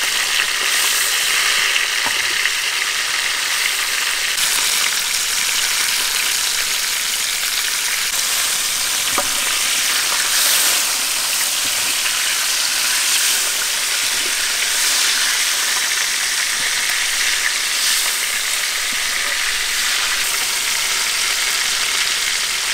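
Whole catfish frying in hot oil in a wide metal pan, the oil sizzling steadily.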